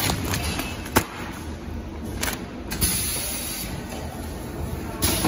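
PVC film bag-making machine running steadily, with a sharp click about a second in and short bursts of hiss near the middle as clear PVC film is handled at the cutting end.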